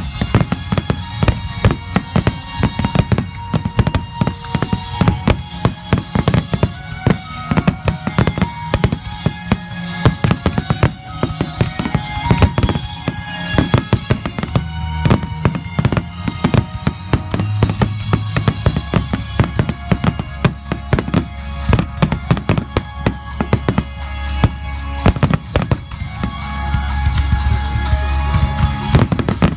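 Aerial firework shells bursting in rapid, irregular succession during a display finale, over music playing along with the show.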